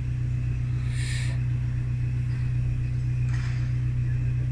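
Steady low hum of an idling motor vehicle, with two short hisses, about a second in and about three and a half seconds in.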